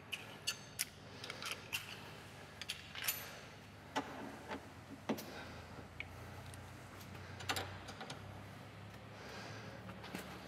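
Scattered metallic clicks and clinks of hand tools: a socket and long-handled wrench being fitted and pulled to tighten the bolt on a car's rear suspension toe link.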